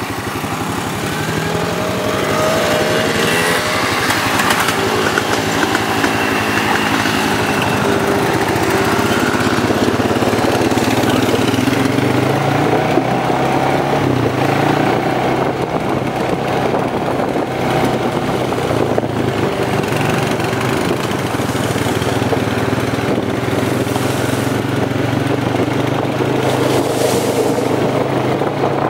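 Quad (ATV) engines: several quads drive past with their engine pitch shifting, then a steady engine drone from a quad under way on a dirt trail.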